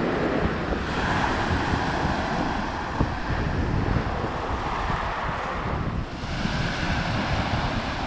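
Small sea waves breaking and washing up a pebble beach, the wash swelling about a second in and again around six seconds in. Wind buffets the microphone throughout.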